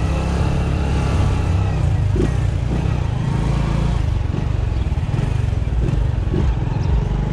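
Honda Biz's small single-cylinder four-stroke engine running steadily as the bike is ridden, under a steady rush of wind and road noise.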